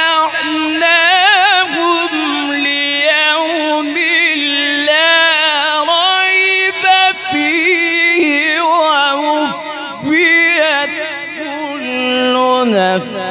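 A man's solo voice chanting Quranic recitation (tilawat) in the melodic tajweed style, with long held, wavering, ornamented notes. The line slides lower near the end as a phrase closes.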